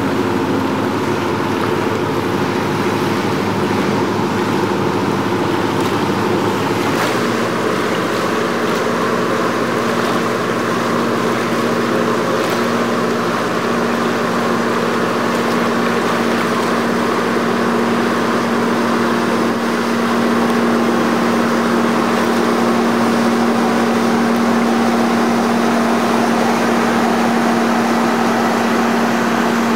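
Engines of passing Rhine ships running with a steady drone over rushing water. First a cargo barge, then, after an abrupt change about seven seconds in, a river cruise ship pushing a bow wave, with a steady low hum.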